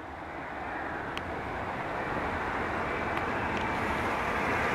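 Jet engines of a Boeing 757-200 on final approach with gear down: a steady rushing noise with a faint whine, growing louder as the airliner comes closer.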